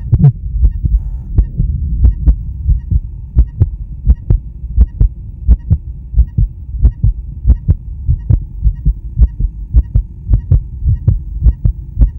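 A man's heart beating in a steady, regular rhythm of paired lub-dub sounds, a little faster than one beat a second, over a low hum.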